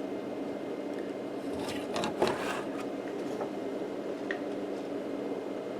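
Steady background hum on a workbench, with a few faint clicks and taps about two seconds in and once more near the end, as small tools are handled.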